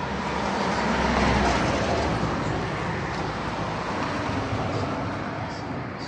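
A road vehicle going by: a swell of engine and tyre noise that peaks about a second in and then fades slowly.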